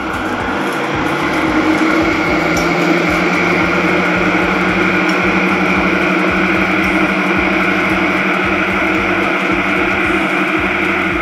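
Background music with guitar, a held chord that swells in over the first second or two and then holds steady.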